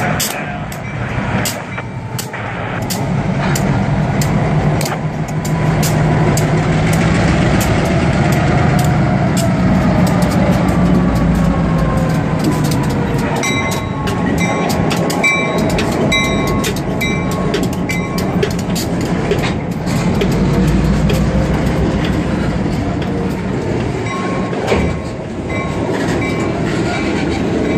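Two Union Pacific diesel road-switcher locomotives rumbling past at close range, then covered hopper and tank cars rolling by, their wheels clicking over the rail joints. From about the middle on, a grade-crossing bell dings over the train noise.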